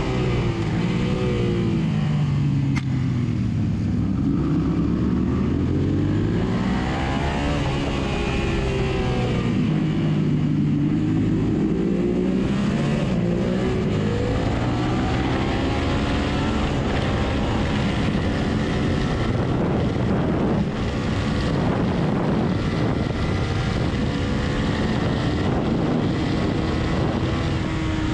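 Onboard sound of a racing motorcycle's engine under hard acceleration, over steady wind rush. Its pitch climbs through each gear and drops away as the bike slows for corners.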